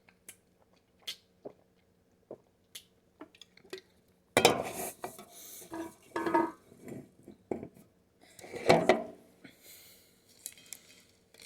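Cutlery clinking and scraping against a dish while eating: scattered light clicks at first, then louder clattering and scraping from about four seconds in.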